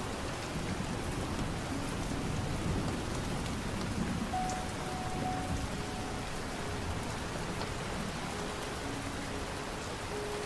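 Steady rain falling, an even hiss with patter, under a few soft, long-held music notes.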